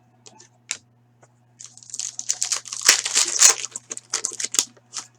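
Foil trading-card pack wrapper crinkling and tearing as a pack is opened. It starts with a few small clicks of handling, then about three seconds of dense crackling, over a faint steady low hum.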